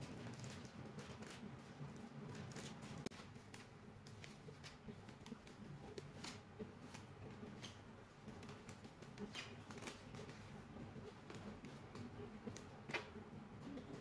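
Faint, intermittent rustling and crinkling of brown kraft wrapping paper as it is folded and pressed around a flower bouquet, with scattered small crackles.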